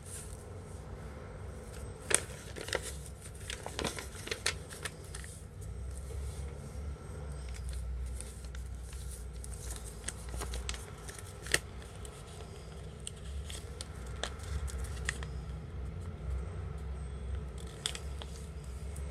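Paper being folded and creased by hand: irregular crinkles, rustles and sharp little taps, the sharpest about two seconds in and again about halfway through, over a steady low hum.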